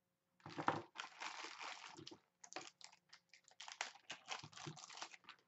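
Packaging being rummaged and handled close by: a stretch of crinkly rustling, then a run of short crackles and clicks.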